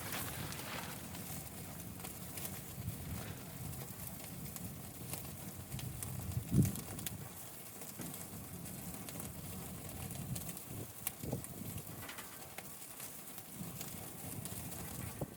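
Wood fire crackling, with scattered sharp pops over a low steady rumble, and a single thud about six and a half seconds in.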